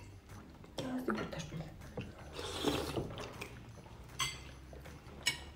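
Spoons clinking against soup plates as people eat, a handful of sharp clinks scattered through.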